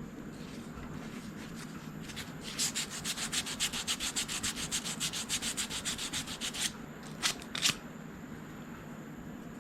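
Hand sanding with a scrap of 320-grit sandpaper on the edges of a milling vise: a quick run of even back-and-forth strokes, about seven a second, starting a couple of seconds in and lasting about four seconds, then two single strokes. The sandpaper is easing off sharp edges and burrs.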